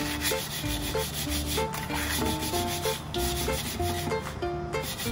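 Coarse salt and lemon juice being scrubbed by hand around the inside of a copper pan, in repeated rubbing strokes, to clean and polish the copper. Background music with a melody plays along.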